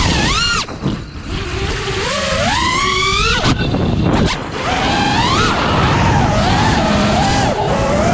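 FPV quadcopter's four T-Motor F80 Pro 2200kv brushless motors spinning HQ 5x4.3x3 tri-blade props, a whine that rises and falls with the throttle, over wind rush. The throttle drops off briefly about a second in, then the pitch climbs steadily before cutting again around three and a half seconds in. The whine returns near the middle and warbles up and down during flips.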